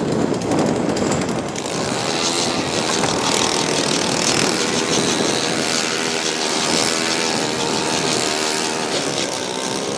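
Small gasoline engine of a power ice auger running steadily as it bores through lake ice, its pitch drifting slightly up and down under load.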